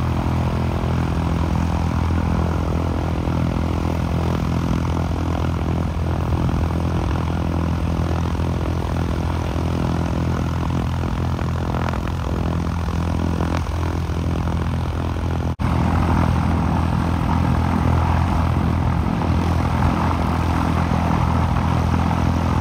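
Single-engine propeller plane's piston engine idling steadily on the ground close by. It drops out for an instant about two-thirds of the way through and then goes on slightly louder.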